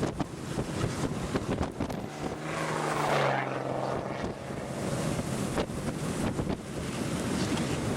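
Strong wind buffeting the microphone with a rough, gusty rush. About two and a half seconds in, a low droning hum rises out of the wind and fades again by about four seconds in.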